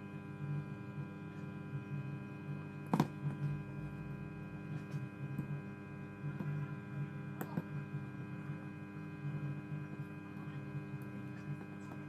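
Steady electrical mains hum, with a sharp knock about three seconds in and a few fainter clicks later as a phone circuit board and metal tweezers are handled on the work mat.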